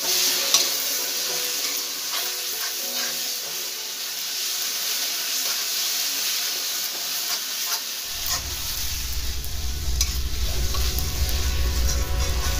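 Onions and ginger paste sizzling in oil in a steel kadai, with a steel spatula stirring and scraping against the pan in scattered clicks. A low rumble joins about eight seconds in.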